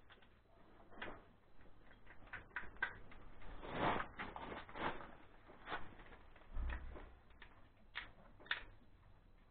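Small parts handled by hand: scattered light clicks and taps, a few sharper ones, and a dull low thump about two-thirds of the way through.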